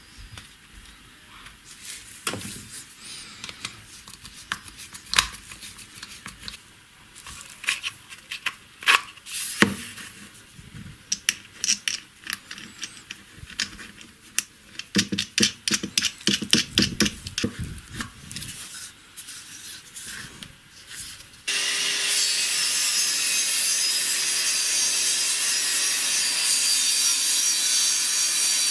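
Clicks, taps and scrapes of hands handling a PVC pipe and its plastic end cap while fitting a bolt through the cap, with bursts of rapid clicking. About 21 seconds in this cuts abruptly to a table saw running with a loud, steady noise.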